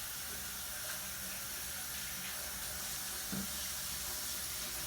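Water running steadily from a tap into a sink, a continuous even hiss, with a small soft knock about three and a half seconds in.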